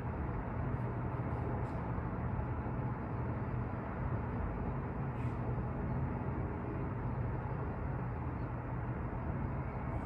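Steady city street noise from twelve floors up: an even wash of traffic with a constant low hum beneath it and a few faint ticks.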